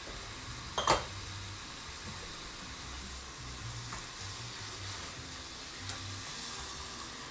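Sliced mushrooms sizzling in a nonstick frying pan over high heat while a spatula stirs them, the pan liquid boiling down. A single sharp knock about a second in.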